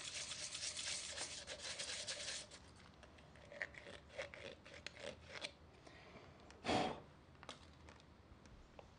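A white PVC pipe cap being scraped by hand: quick rasping strokes for the first two and a half seconds, then slower, fainter scrapes, with one short louder scrape about seven seconds in.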